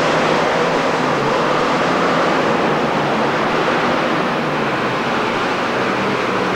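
Modified pulling tractor's engines running hard under load as it drags the weight sled down the track: a loud, steady roar.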